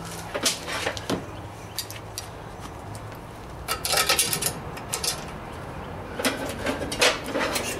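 Scattered metallic clanks and rattles of flat steel bars and locking pliers being handled on a workbench, loudest about four and seven seconds in, over a low steady hum that fades out about five and a half seconds in.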